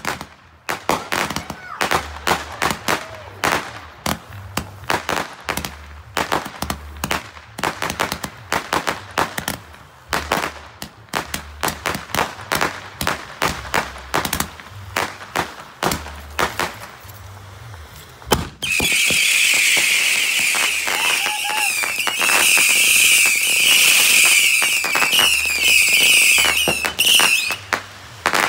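Fireworks: for about the first eighteen seconds, a long run of rapid, irregular bangs and pops. Then a ground fountain firework sprays sparks with a loud, steady hiss for about nine seconds, cutting off near the end.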